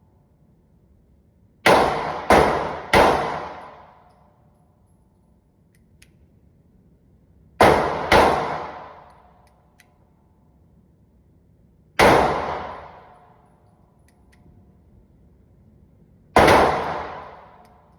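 Glock 43X 9mm pistol firing seven shots at an uneven pace: a quick string of three, a pair, then two single shots several seconds apart. Each shot is a sharp bang that echoes and dies away over about a second.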